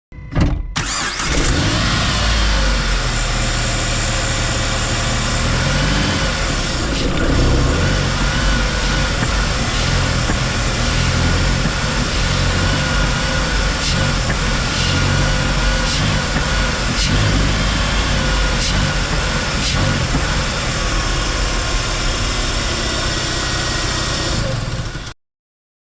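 2006 Jeep Wrangler TJ's 2.4-litre four-cylinder engine running under load in low gear, its revs rising and falling as the throttle is pressed and quickly released, with a few sharp knocks scattered through. This is the test for a clunk on throttle release that the owner suspects comes from a worn engine or transmission mount.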